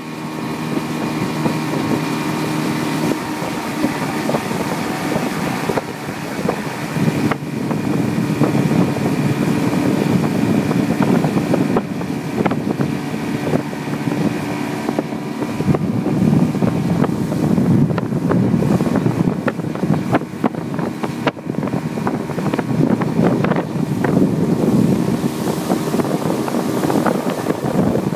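Yamaha outboard motor running at speed under load while towing a skier, with wind buffeting the microphone and water rushing in the wake.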